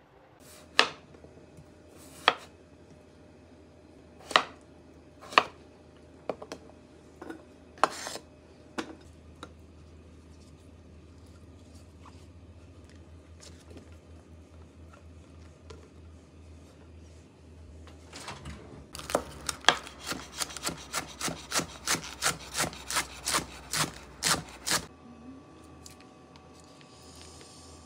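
Steel kitchen knife chopping on a wood-fibre cutting board: a few separate knocks at first, then a quick even run of chops, about three to four a second, for several seconds.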